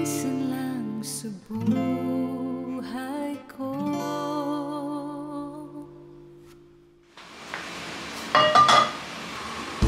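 A gentle acoustic guitar song with a singing voice, fading out about seven seconds in. Then a steady hiss of food frying in a pan, with a few brief clinks.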